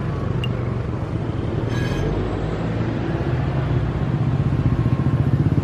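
A motor vehicle engine running, a steady low hum that grows a little louder toward the end.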